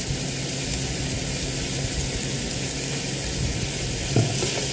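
Diced mixed vegetables sizzling steadily in butter and oil in a multicooker pot while being stirred with a spatula, with a faint low hum underneath.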